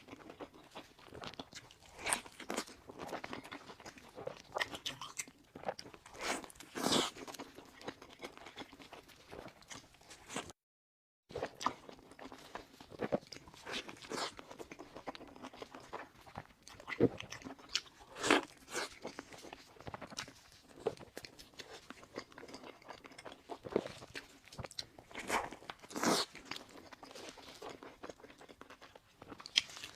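Close-miked eating of a sauce-laden beef burger: irregular bites, wet chewing and smacking, with occasional crunchier bites. The sound drops out completely for under a second just over ten seconds in.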